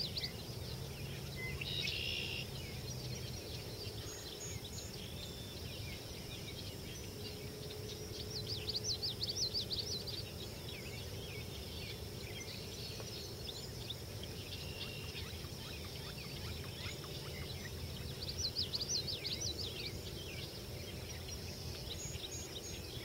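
A small songbird singing two short bursts of rapid, high, rising and falling notes, about a third of the way in and again toward the end, over a steady low outdoor background noise.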